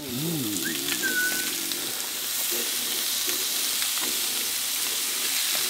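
Seasoned rockfish fillets and onions frying in a hot pan, a steady loud sizzle.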